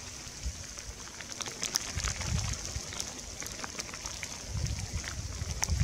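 Wind gusts buffeting the microphone in a wintry field recording, rumbling about two seconds in and again near the end, over a steady hiss with scattered light ticks.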